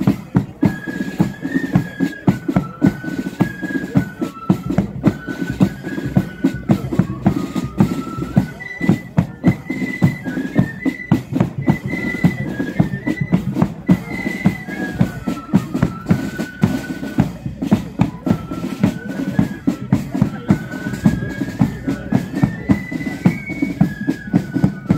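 Marching flute band playing a tune: the flutes carry a single melody line over a steady beat of snare and bass drums.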